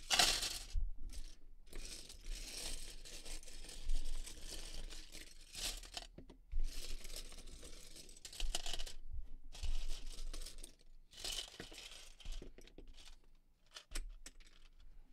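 Loose white plastic Lego hinge bricks being swept across a tabletop and scooped into a cup, clattering and scraping in a run of irregular bursts with short pauses between.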